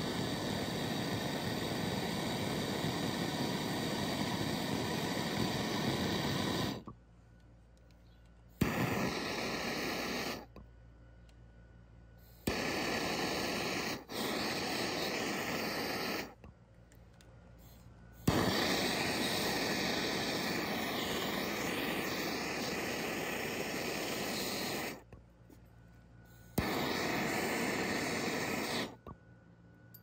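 MAPP gas torch burning with a steady hissing roar while heating copper refrigerant line joints for soft soldering with Stay Bright 8. The flame stops abruptly several times for a second or two and comes back, often with a sharp click.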